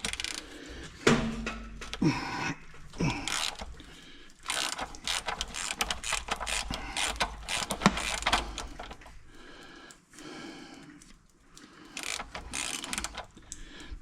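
Hand ratchet clicking in quick runs of strokes as a 5/8 socket works a bolt on the engine, after a few metal clinks of tools being picked up.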